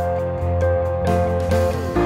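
Background music: a gentle instrumental ballad with held notes that change pitch every second or so.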